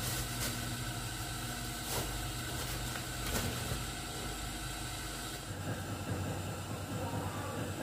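Thin plastic bags rustling and crinkling as they are handled, with a few sharp crackles, over a steady low hum.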